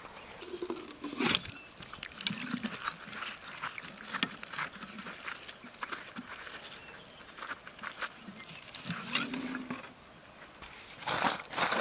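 Gloved fingers digging and scraping through damp soil and gravel: irregular crunches, scratches and small clicks, thickest near the end, with a few short low murmurs underneath.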